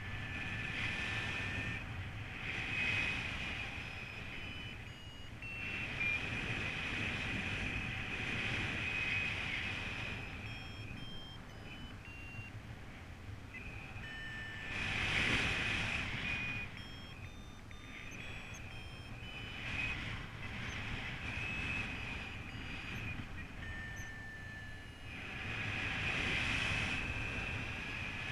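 Paragliding variometer beeping, its tone shifting in pitch in short steps, over wind rushing on the microphone. The wind swells about halfway through and again near the end.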